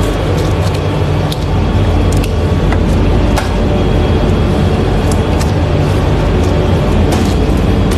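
Loud, steady mechanical drone with scattered light clicks.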